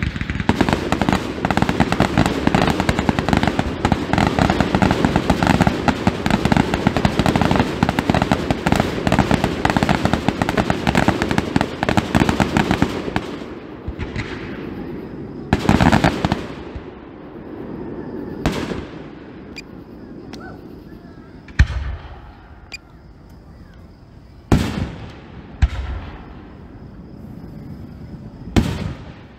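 Fireworks display: for the first dozen or so seconds a dense run of rapid crackling and popping from shell bursts. After that come single loud bangs a few seconds apart, the loudest about two-thirds of the way in.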